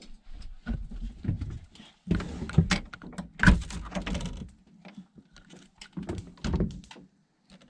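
Clicks and thumps of a truck camper's entry door as its latch is worked by hand and the door is pushed open, with a loud thump about halfway through and knocks from the camera being handled.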